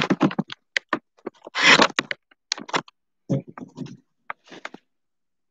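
Handling noise close to the microphone: a run of clicks, taps and scrapes, with a longer rustle about a second and a half in, stopping abruptly about five seconds in.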